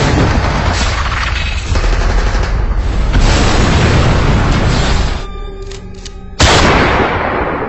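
Action-scene soundtrack of gunfire and explosions over music. It thins out briefly near the end, then a sudden loud blast hits and dies away.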